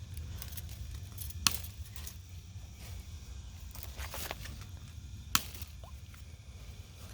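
Wiha 8-inch insulated BiCut cutters snipping through old fence wire: two sharp snaps about four seconds apart, with lighter clicks between them.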